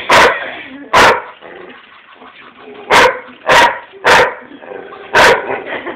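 Newfoundland-mix dog barking: six loud single barks at irregular intervals, about a second or two apart.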